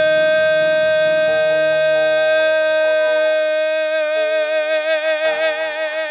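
Male voice holding one long, loud high sung note, steady at first and then with a wide vibrato from about four seconds in, over instrumental accompaniment chords that fade out about halfway through.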